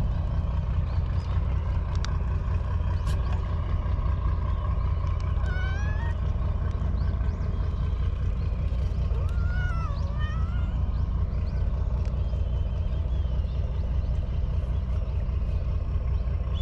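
A cat meowing twice, about five and a half and nine seconds in, over a steady low rumble.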